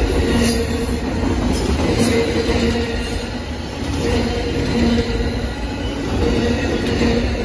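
Amtrak Auto Train's bi-level autorack cars rolling past: a steady rumble of steel wheels on rail with a low hum that comes and goes and a few sharp clacks.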